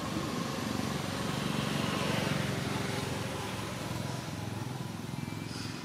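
An engine running with a steady low hum, growing louder about two seconds in and then easing off.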